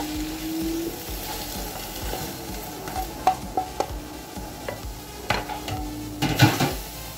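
A spatula scraping fried chicken strips out of a frying pan into a glass baking dish, with scattered light clicks and taps of utensil on pan and dish and a cluster of louder knocks near the end. A faint sizzle of frying runs underneath.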